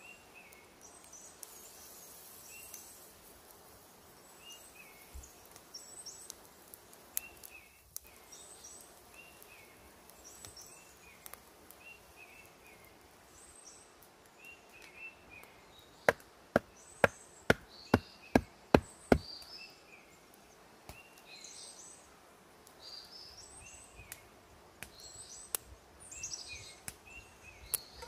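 Woodland birds singing over the whole stretch, with a wood fire crackling faintly. About two-thirds of the way through, a quick, even run of about eight sharp knocks over some three seconds is the loudest sound.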